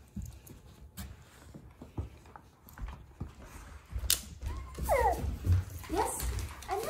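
A dog whining in short high cries that slide down in pitch, about five seconds in and again near the end, amid scattered thumps and scuffles as the dogs move about.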